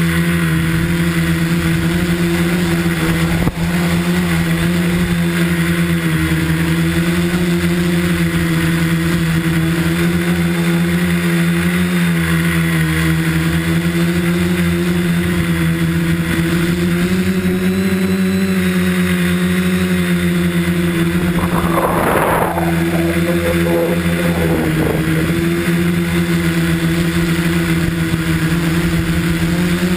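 A tricopter's three electric motors and propellers buzz steadily, heard from the camera on the craft, the pitch wavering slightly as the throttle changes. A short burst of rushing noise comes about two-thirds of the way through.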